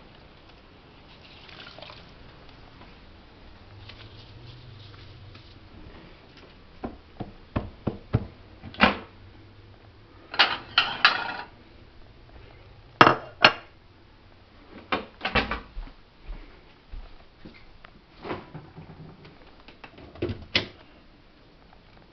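Dishes being handled at a stainless-steel sink: scattered sharp clinks and knocks, with a few quick clatters close together.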